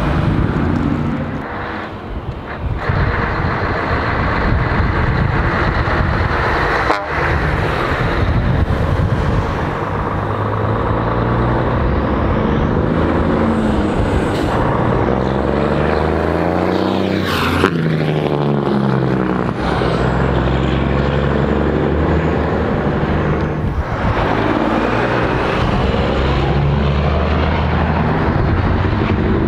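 Classic Scania and DAF truck tractor units with loud exhaust pipes driving past one after another. The engine pitch rises and falls as they rev and change gear, and one passes close about halfway through.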